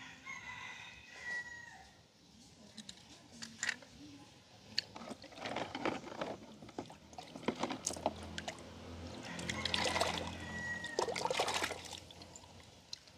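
Water pouring and trickling over small toy cars, with many light clicks and knocks from the cars being handled.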